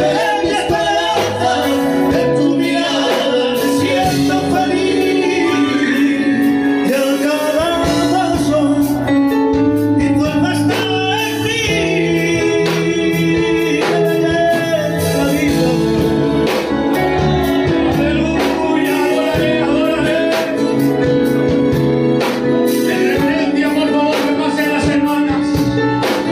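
Live Spanish-language worship song: a man singing into a microphone over guitar and keyboard accompaniment, with long, wavering held notes.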